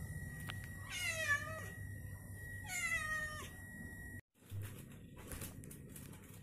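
Domestic cat meowing twice, each a drawn-out call that falls in pitch, about a second and a half apart.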